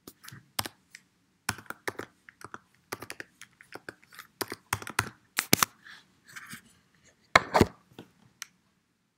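Typing on a computer keyboard: a run of irregular keystroke clicks as a password is entered, ending with a louder pair of strokes about seven and a half seconds in.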